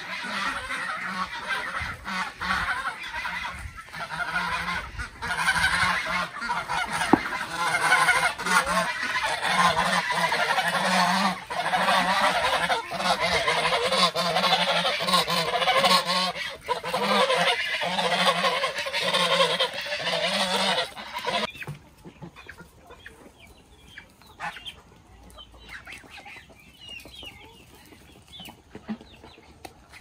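A flock of domestic geese honking continuously, mixed with chickens, as the poultry crowd in for feed. About two-thirds of the way through the loud honking stops abruptly, leaving softer scattered clucks and calls.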